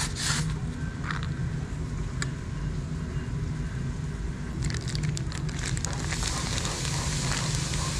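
Metal serving spoon scraping and clicking in a foam takeaway box as rice is scooped out, with scattered clicks early, a cluster of them about five seconds in and a crackly rustle over the last two seconds. A steady low hum runs underneath.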